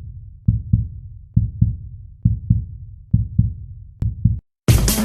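Intro music: deep double thumps like a heartbeat, about one pair a second. A sharp click and a moment of silence near the end, then a full electronic track with a steady beat kicks in.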